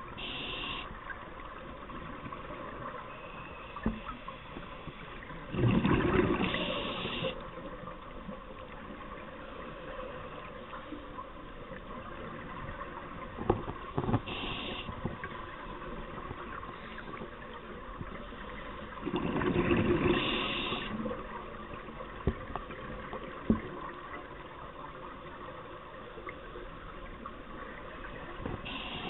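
Scuba diver's breathing through a regulator underwater: two long gushing bursts of exhaled bubbles about fourteen seconds apart, with short hisses of breaths in between them, over a steady underwater hiss and a few sharp clicks.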